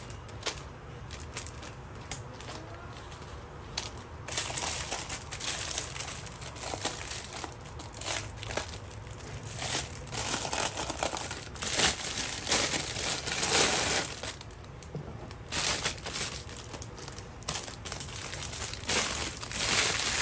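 Clear plastic bag crinkling and rustling as it is handled and pulled off a plastic toilet brush and holder. The rustling is light at first, then comes in denser, louder handfuls from about four seconds in, with a brief pause near the three-quarter mark.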